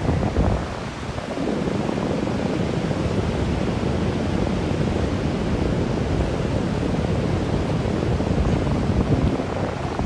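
Sea wind buffeting the microphone in gusts over the steady wash of surf breaking on the shore; the wind eases briefly about a second in.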